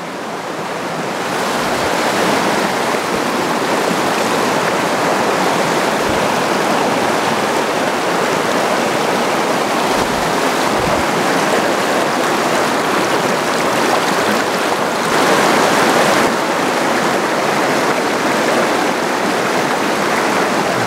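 Shallow river riffle: water rushing steadily over rocks, swelling a little louder for a second or so about three quarters through, with a few soft low bumps.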